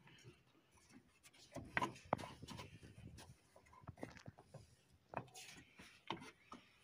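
Faint handling noises around the car's radiator filler neck and hoses: a few scattered light clicks and rubs.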